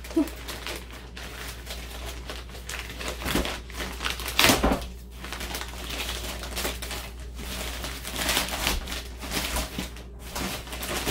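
Plastic bubble wrap and packaging being handled and pulled apart, an irregular crinkling and rustling, with one louder, sharper rustle about four and a half seconds in.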